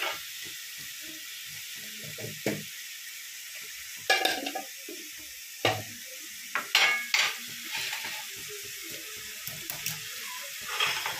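Spice and tomato masala sizzling as it fries in a pan, with a steady hiss. A wooden spatula scrapes and knocks against the pan a few times.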